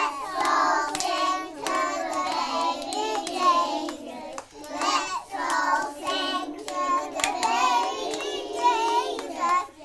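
A group of young children singing together and clapping their hands along with the song.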